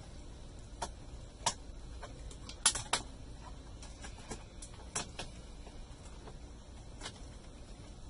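HP ProBook 4420s keyboard clicking and snapping as it is pressed down and seated into the laptop's plastic deck: about eight irregular sharp clicks, the loudest two close together a little under three seconds in.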